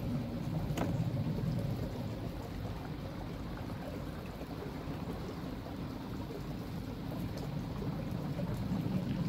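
Water running steadily through a koi pond filter system, heard as a low, even rush, with a single light click a little under a second in.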